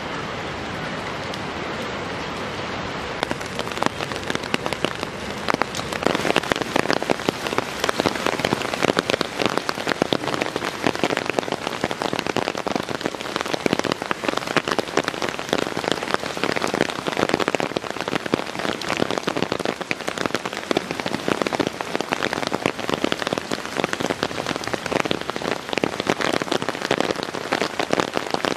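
Steady rain falling, a dense hiss of many small drop hits that turns more crackly and a little louder about four seconds in.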